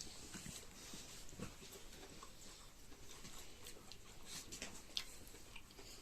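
Close-up eating sounds: scattered small wet clicks and smacks of chewing and tearing at cooked chicken.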